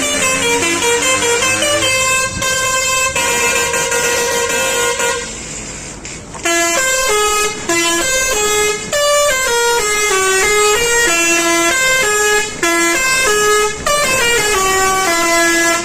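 Indonesian tour bus 'telolet' horn, a multi-tone musical air horn, playing a tune of quick stepped notes that rise and fall. It drops back briefly about five seconds in, then plays on.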